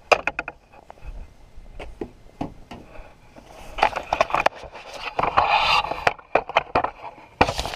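Handling noise on the camera: a nylon jacket rubbing and rustling against the microphone, with scattered clicks and knocks as the camera is moved around. The rustling is loudest about four seconds in and again around five to six seconds in.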